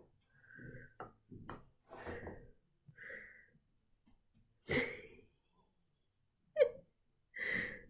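An English bulldog breathing noisily in a string of short bursts, with one louder, sharper burst about halfway through and a brief sharp click-like sound later.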